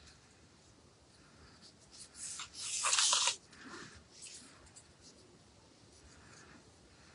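Rustling and crinkling of craft materials being handled at a work table, with one louder crinkly burst lasting under a second, about three seconds in, and softer scratchy handling sounds around it.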